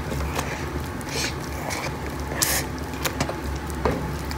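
Mashed potatoes and cream being stirred in a pan with a metal utensil: wet squishing swishes, two of them more distinct, and light clicks of metal on the pan, over a steady low hum.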